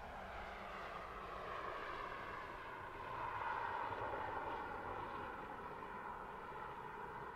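Mazda 6 wagon driving at a steady pace: a steady engine note with road noise that swells slightly about three seconds in.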